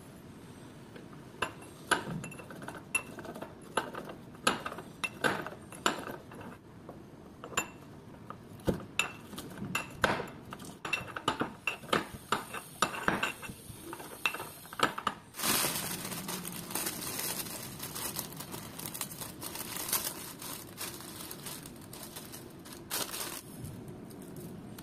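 Stainless steel pestle pounding in a stainless steel mortar: irregular sharp metallic clinks, one to three a second, each with a short ringing note. About fifteen seconds in the clinks stop and a steady noise without clinks takes over until near the end.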